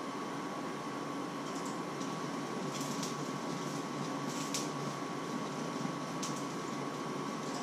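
Steady machine hum and hiss with a thin, constant high tone, like a running kitchen appliance or fan, with a few faint ticks a couple of seconds in and again later.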